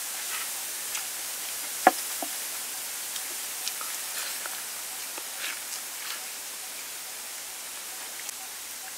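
Biting and chewing a crisp-battered fried chicken leg: scattered small crunches and clicks over a steady hiss, with one sharp knock about two seconds in.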